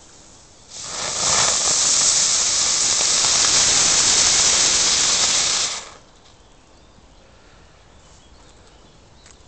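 Ground spinner firework burning with a loud, steady hiss that starts about a second in and cuts off sharply after about five seconds.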